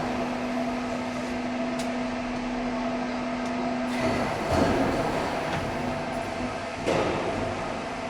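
CNC tank-welding machine running: steady mechanical noise with a constant hum. A lower hum stops about four seconds in, and the noise swells briefly twice.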